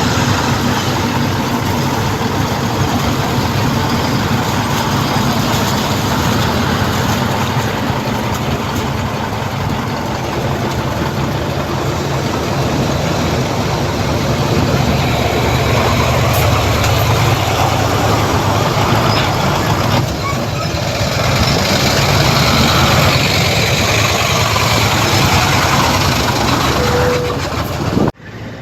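Heavy diesel engines of earthmoving machinery, a bulldozer and dump trucks, running steadily. The sound cuts off abruptly near the end.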